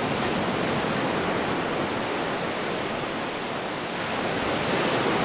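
Steady, even rush of water, floodwater or heavy rain.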